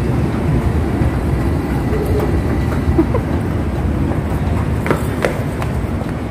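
Steady low rumble of a metro station heard from a moving escalator, with a few light clicks about five seconds in.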